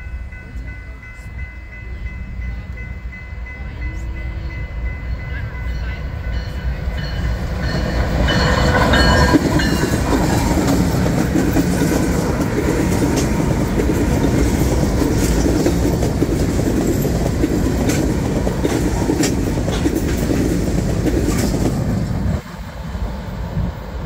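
A consist of several diesel locomotives running light approaches and passes close by with a growing engine rumble. A grade-crossing bell rings at first, and a horn sounds briefly about eight to nine seconds in, at the loudest point. The wheels then clack over the rail joints as the units go by.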